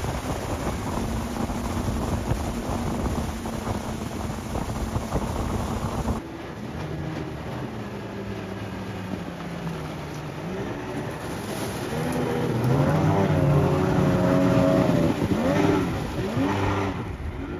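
Yamaha 50 hp tiller outboard pushing a long jon boat at speed, a steady engine drone. About six seconds in the sound cuts to a quieter pass-by, where the engine note bends up and then down as the boat goes past.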